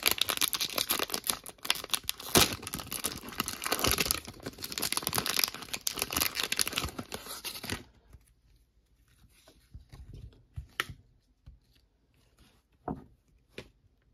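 Foil wrapper of a Panini Prestige football card value pack being torn open and crinkled, for about eight seconds. Then only a few faint light clicks as the cards are handled.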